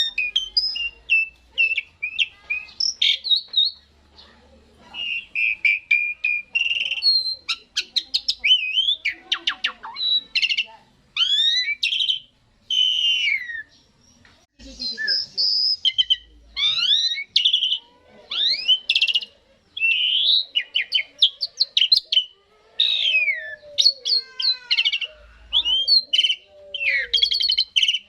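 Asian pied starling singing: a long, varied jumble of whistles, squeaky rising and falling notes and rapid chattering phrases, with brief pauses about four seconds in and again near the middle.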